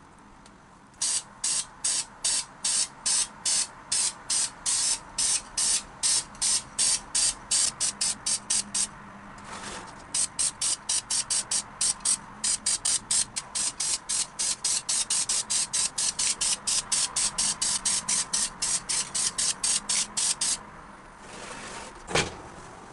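Aerosol spray-paint can spraying black paint in many short bursts, about three a second and then, after a brief pause, about four a second. A single sharp knock near the end.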